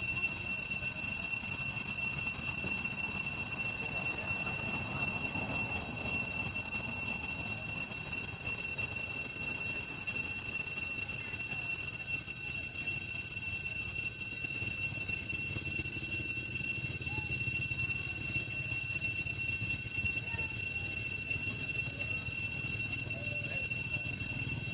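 A steady, high-pitched drone of insects, one unbroken tone holding without change, over a low background rumble.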